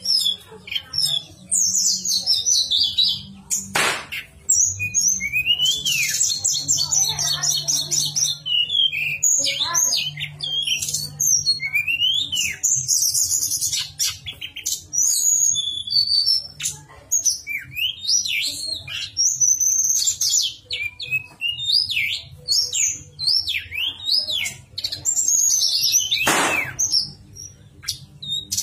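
Tledekan gunung songbird singing a long, varied song of quick chirps, rising and falling whistles and fast trills, the flute-like song used to tutor caged birds. Two short sharp knocks cut in, about 4 seconds in and near the end.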